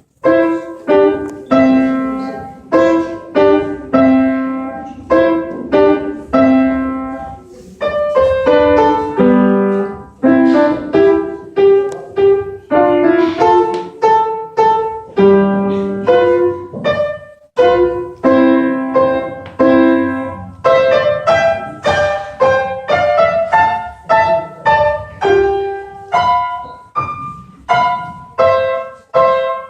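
Piano playing a simple tune over chords, each note struck and fading, with a brief pause about two-thirds of the way through.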